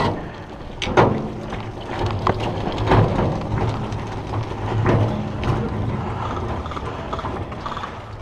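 Irregular sharp clicks and knocks, about a dozen of them, over a low steady hum.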